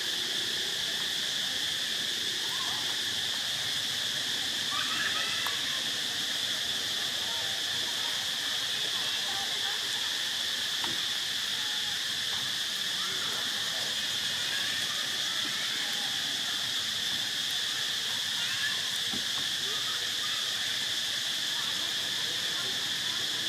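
Steady high insect drone running without a break, with a few faint short chirps over it.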